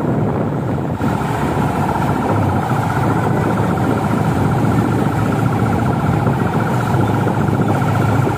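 Close vehicle engines and road noise of a slow-moving convoy, with a steady, fast-pulsing engine note.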